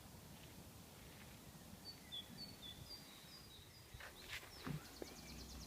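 A small bird chirping faintly, a quick series of short high notes, over quiet outdoor background noise, with a few sharp clicks near the end.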